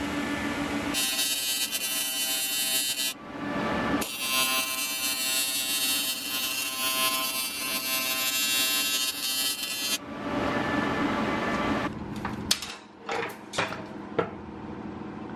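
AC TIG welding arc on oil-soaked cast aluminium, set to 200 amps at 125 hertz, buzzing steadily as it fills a small hole in a welded cap. It runs as two welds, about two seconds and then about six seconds, each starting and stopping abruptly. A few sharp knocks follow near the end.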